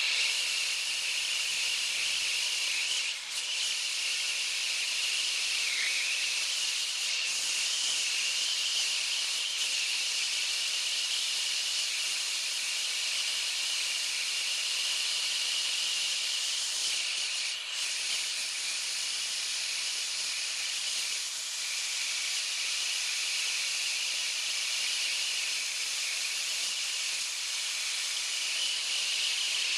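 Acetylene air-induction turbo torch burning steadily against a copper pipe joint during silver soldering: a constant hiss with a steady high whistle running through it, as air is drawn into the nozzle to feed the flame.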